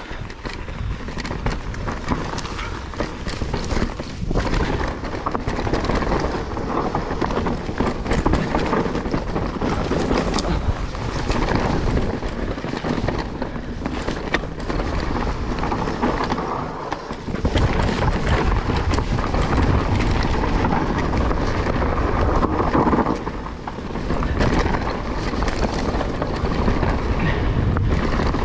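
GT Force Carbon Elite full-suspension mountain bike being ridden down a dirt forest trail: a continuous rumble of tyres on dirt and roots, with the chain and frame rattling over bumps. There are two short lulls in the second half.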